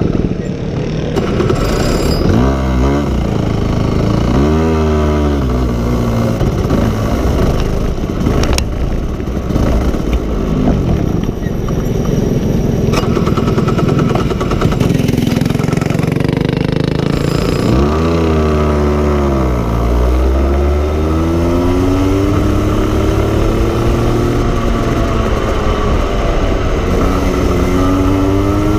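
Go-kart engine heard from on board while driving, its pitch dropping as it slows for corners and climbing again as it accelerates, twice, then rising steadily near the end.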